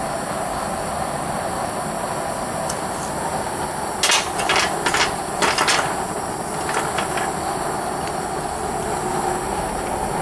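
Steady roar of a small melting furnace's gas burner, with a quick run of sharp metal clinks about four to six seconds in and a few fainter ones just after, as a hot mold and its lid are set into the furnace with tongs.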